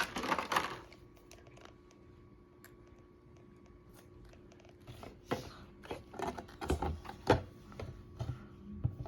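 Cardboard-and-plastic toy packaging being handled and opened: scattered clicks, knocks and rustles, mostly in the second half after a quiet few seconds.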